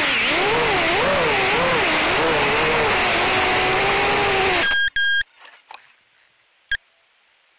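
Onboard audio of a 3-inch FPV quadcopter's motors whining, the pitch wavering up and down with the throttle, then cutting off abruptly about five seconds in as the quad comes down in the grass. Two brief high beeps follow, then a few small knocks and a sharp click.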